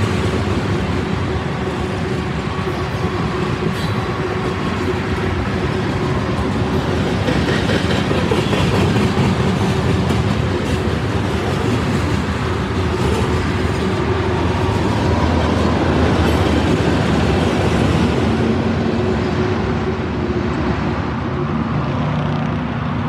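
Freight train's tank cars and covered hopper cars rolling past close by, steel wheels clattering over the rail. The sound grows duller near the end as the last cars move away.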